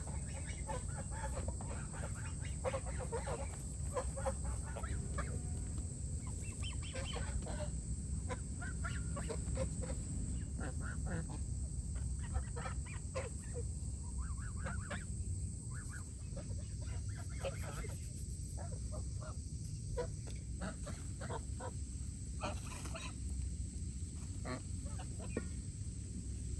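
Chickens clucking now and then over a steady low rumble of outdoor background noise.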